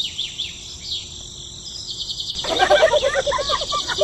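Steady, high chirring of insects with fast repeated pulses, joined about two and a half seconds in by a louder, rapid run of pitched animal calls.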